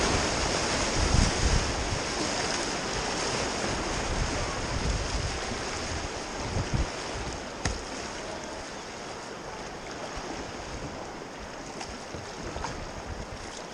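Whitewater rushing around a kayak running a river rapid, loudest at first and gradually fading as the boat moves into calmer water. Low thumps of water and wind buffeting the camera microphone, most of them in the first half.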